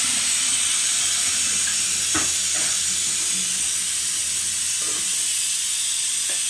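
Kitchen tap running into a small stainless-steel pot held in a steel sink: a steady hiss of falling water as the pot is rinsed.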